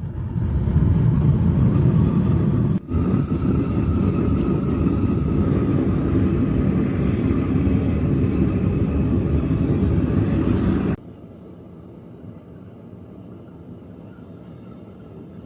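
A power tool running steadily, with a brief dip about three seconds in, then switched off abruptly about eleven seconds in, leaving a quieter steady background.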